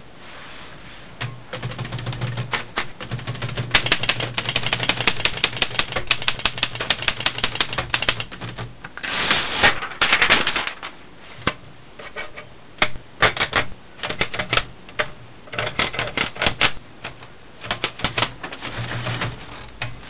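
1928 Underwood No. 5 manual typewriter being typed on: fast runs of sharp typebar clacks in bursts with short pauses, with a louder, denser run about halfway through.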